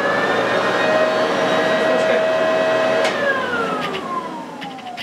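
Electric leaf blower-vacuum motor, working as the suction unit of a homemade cyclone dust extractor, running at full speed with a steady high whine. About three seconds in there is a click as it is switched off, and the motor winds down in a long falling whine.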